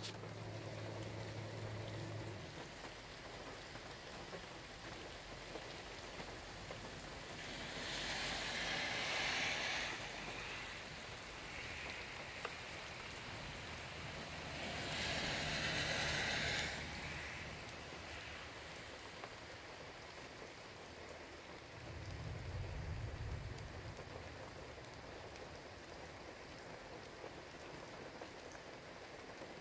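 Steady rain falling, with two louder surges of hiss about a third and halfway through, and a brief low rumble about three-quarters of the way in.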